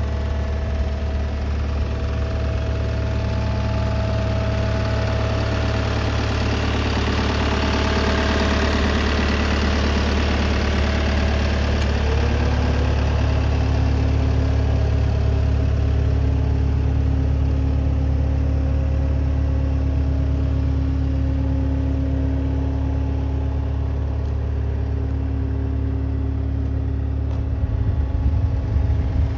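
A CAT 299D2XHP skid steer's diesel engine running steadily at idle, with a deep steady hum; about twelve seconds in, a whining tone steps up in pitch.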